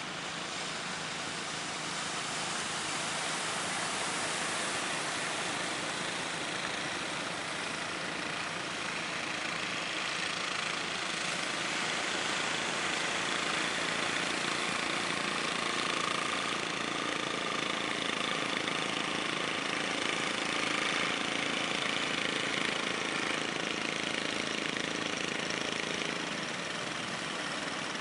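Engines of several wooden fishing boats running as they push out through rough sea, mixed with the wash of waves. The noise is steady throughout and grows a little louder after the first couple of seconds.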